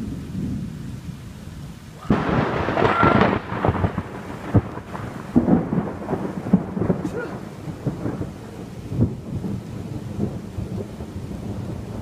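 Thunder: a low rumble, then a sudden loud crack about two seconds in that rolls on as a series of crackles and rumbles.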